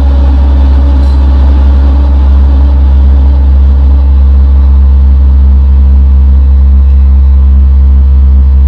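EDP Wasp analogue synthesizer holding a loud, steady low drone with a fast pulsing flutter in it.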